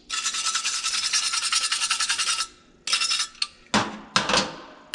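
Stiff wire brush scrubbing a freshly torch-welded steel panel in quick back-and-forth strokes, cleaning the scale off the weld. The scrubbing stops a little before halfway, comes back briefly, and then two metallic knocks follow near the end.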